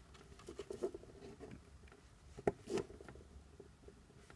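Faint scraping and light ticks of a hobby-knife blade nicking into the insulation of a thin black ground wire, with one sharper click about two and a half seconds in.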